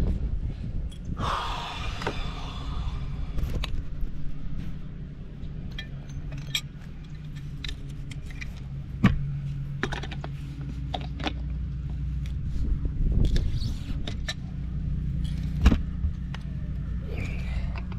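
Scattered clicks, clinks and knocks of plumbing fittings and hand tools being handled during a pipe repair, with a couple of sharper knocks about halfway and near the end, over a steady low hum.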